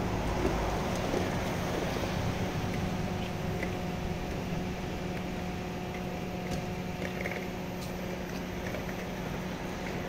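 Steady machinery hum of a cruise ferry's engines and ventilation: a constant drone carrying a few steady tones, with a few faint clicks now and then.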